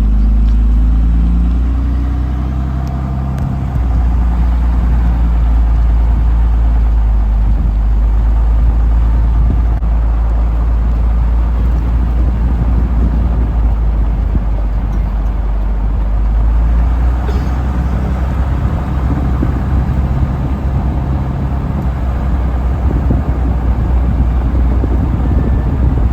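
Motor vehicle engine running steadily while on the move, a loud, deep, unbroken rumble.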